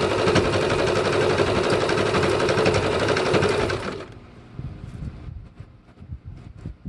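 Electric sewing machine stitching steadily through denim, ribbon and fringe trim, then stopping abruptly about four seconds in, leaving only faint scattered clicks.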